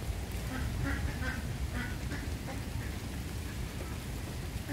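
A run of about six short animal calls, like a bird or fowl calling, in the first two and a half seconds, over a steady low background of rain noise.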